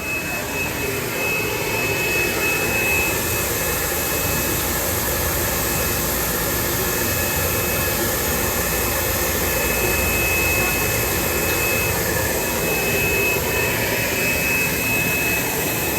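Automatic labeling line running: a steady mechanical whir and hiss, with a thin high whine that comes and goes.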